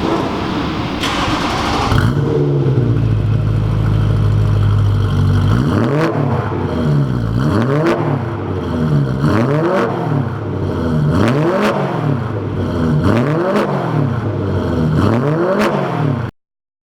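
BMW M3 engine through a custom dual exhaust, idling steadily for a few seconds, then revved in a series of quick blips about every one and a half seconds, its pitch rising and falling with each.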